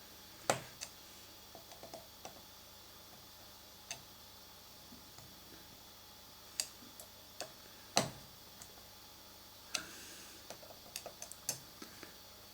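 Scattered small metallic clicks and taps of screws and a hand tool against metal parts while M2.5 screws are fitted into a lathe's tool turret. The two sharpest knocks come about half a second in and about eight seconds in, with a quick run of lighter clicks near the end.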